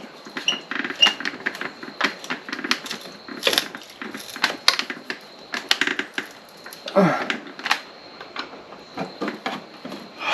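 Irregular light clicks and taps of hand tools and fittings being worked on a motorcycle's lower fairing during a light install, with one short falling vocal sound about seven seconds in.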